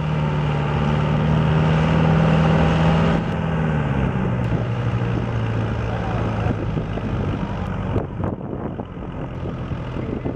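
Green John Deere tractor's diesel engine working hard while pulling a weighted sled. Its steady pitch drops about three seconds in as the engine lugs down under the load, and it keeps running at the lower pitch, with a few short knocks near the end.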